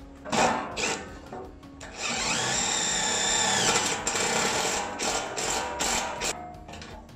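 DeWalt XR cordless drill driving self-drilling tek screws through the sheet-steel footwell and bulkhead panels, pulling the two panels tight together. It starts with a few short bursts, then one long run of about two seconds whose pitch sags as the screw bites, then several more short bursts.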